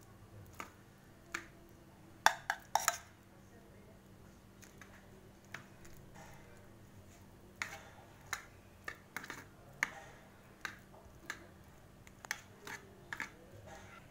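Metal spoon spreading caramel cream over a cake in a metal baking pan: scattered light clicks and taps of the spoon against the pan and the bowl. The loudest cluster comes about two to three seconds in.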